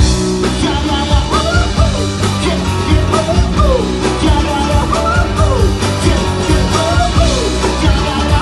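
Live band playing a pop-rock cover: drums and bass keep a steady beat under a lead melody that slides up and down in pitch.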